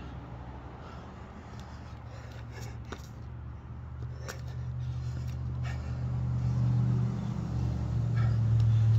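A motor vehicle's engine running at a steady low pitch, growing steadily louder from about four seconds in as it approaches, with a few faint clicks.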